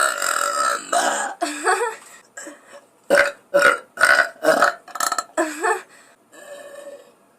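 Women burping: a long belch at the start, two more just after, then a quick run of short burps about two a second, and a fainter one near the end.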